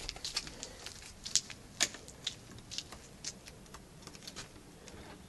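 A key being tried in a lock: a run of irregular light clicks and scrapes, the sharpest two about a second and a half to two seconds in.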